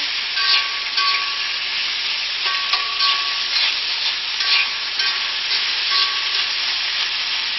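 Shrimp and vegetables sizzling steadily in a very hot cast iron wok on the highest heat, stirred with chopsticks that give a short scrape or clink against the pan every second or so. An unbroken sizzle like this is the sign of a good, hot stir fry.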